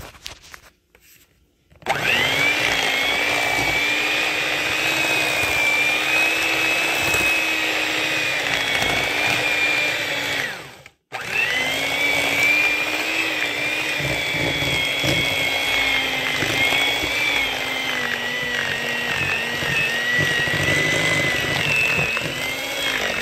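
Electric hand mixer running, its beaters churning a thick cookie dough, with a steady motor whine. It starts about two seconds in, cuts out briefly about halfway through, then runs on.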